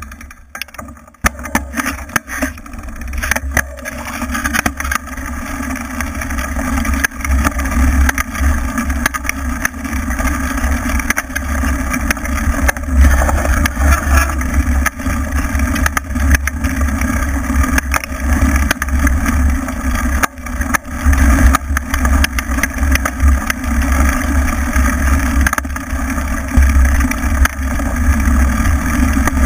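Off-road motorcycle riding a bumpy dirt trail: the engine runs under load over heavy wind rumble on the mounted camera's microphone, growing louder over the first few seconds.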